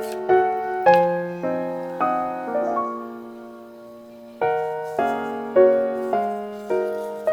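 Background piano music: chords struck about twice a second, pausing in the middle on one held chord that fades away before the playing resumes.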